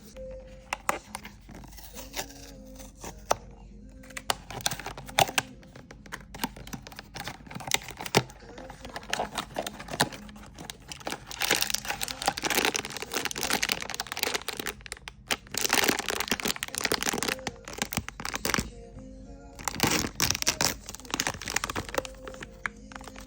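Blind box packaging being opened: the cardboard box and the wrapper inside crinkled, rustled and torn, with many sharp clicks and the loudest rustling in two long stretches near the middle and end. Soft background music plays underneath.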